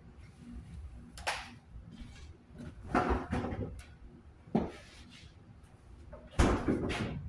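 A handful of separate knocks and clatters of things being handled in a kitchen, a second or two apart, the loudest near the end.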